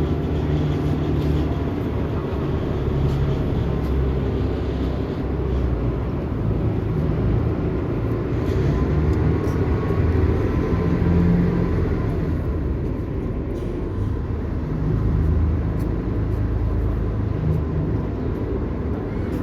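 A boat's engine running steadily, a continuous low drone.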